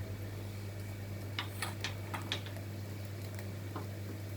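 A quick run of about six light clicks, a little over a second in, with one more faint click near the end, over a steady low hum.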